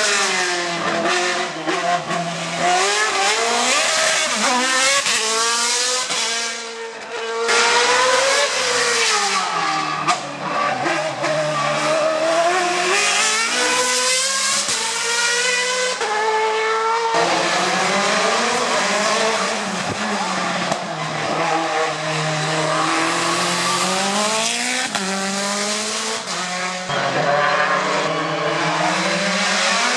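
Hill-climb race cars at full throttle, engines revving up through the gears and dropping back on each shift and lift, over several passes cut together, with abrupt changes about a third and about halfway through.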